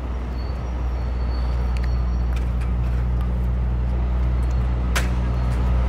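A vehicle engine idling, a steady low drone, with a single sharp click about five seconds in.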